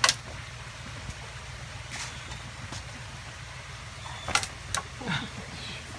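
A steady low engine-like rumble, with a few sharp clicks or knocks: one at the start, one about two seconds in, and two close together past the middle.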